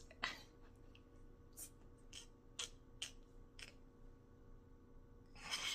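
Quiet room with about six faint, scattered clicks, then a breathy burst of a woman's laughter near the end.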